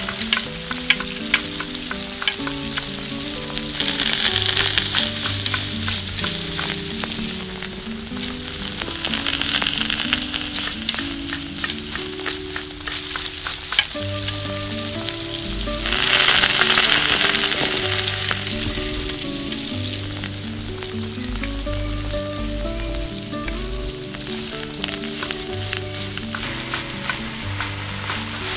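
Hot oil sizzling in a miniature steel kadai as garlic and green chillies fry, with small clicks and scrapes from a tiny spoon stirring against the pan; the sizzle swells louder a few times. Soft melodic background music plays underneath.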